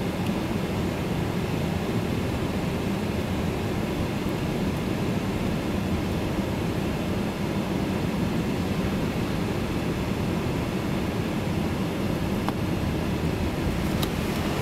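Steady low road and engine rumble heard inside a moving car's cabin, with a couple of faint ticks near the end.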